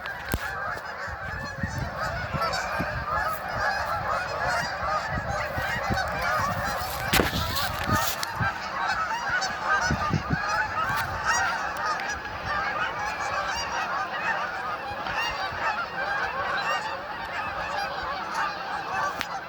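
A huge flock of geese honking all at once: a dense, unbroken chorus of many overlapping calls.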